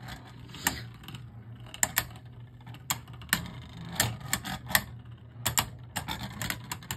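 Two Beyblade Burst tops (Unicrest U2 and U1) spinning and clashing in a plastic stadium: irregular sharp clicks of the tops knocking together, coming faster near the end.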